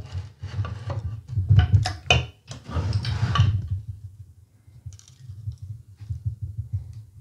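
A screwdriver scraping and clicking against an IZh Jupiter 3 piston as it prises out the piston-pin circlips: a quick run of short metal scrapes and clicks, thinning to faint ticks after about four seconds.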